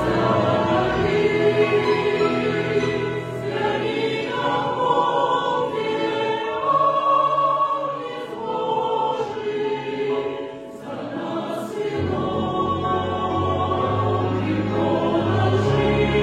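Choral music: a choir singing sustained, overlapping notes, with low bass notes coming back in about three-quarters of the way through.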